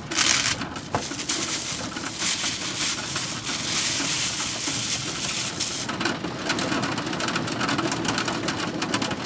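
Rain and small hail on the roof of a camper van, heard from inside: a dense, steady patter of many small hits. Plastic wrap crinkles near the start.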